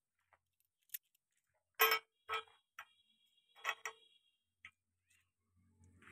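Light metallic clinks of steel bearing parts knocking against a John Deere 5055E's front-axle spindle housing as a bearing is greased and fitted by hand: about seven short, ringing clinks spread over a few seconds, the loudest about two seconds in.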